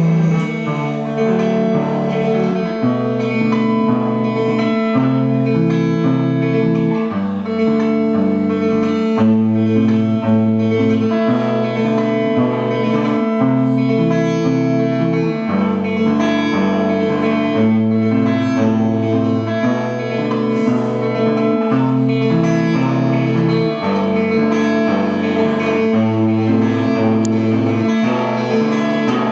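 Instrumental guitar music: plucked and strummed guitar over a low line that steps from note to note every second or so, with no singing.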